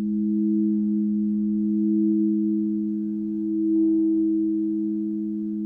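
Two quartz crystal singing bowls sounding together, their rims rubbed with wands: two steady, clear low tones, swelling gently in loudness about two seconds in and again near four seconds.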